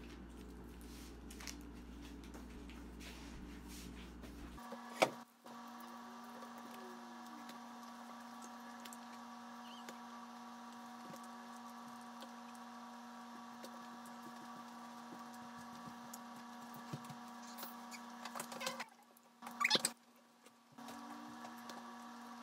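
Quiet room tone: a low rumble that gives way about five seconds in to a steady faint hum. A few light taps and clicks come through, the sharpest one about five seconds in and a cluster near the end.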